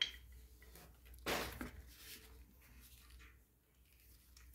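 Quiet room tone with a steady low hum, and one brief soft noise about a second in.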